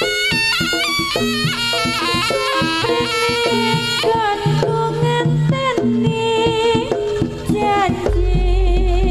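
Live Javanese jaranan accompaniment through a PA: a shrill, nasal reed wind instrument (slompret) plays an ornamented melody over kendang hand drums and gamelan percussion. A deep low drone enters about 8 seconds in.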